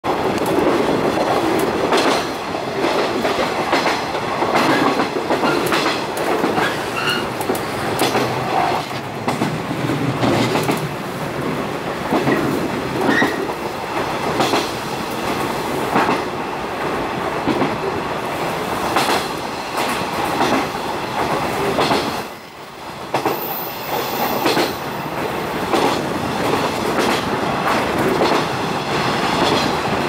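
JR 415 series electric train running at speed, heard from inside the carriage: a steady rumble of wheels on rail, with repeated clicks as the wheels pass over rail joints. The noise briefly drops away about two-thirds of the way through.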